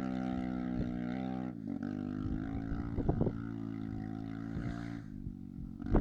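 Small Kawasaki mini ATV engine running at a steady, fairly low speed. Its pitch eases down slightly about a second and a half in, with a few light clicks midway.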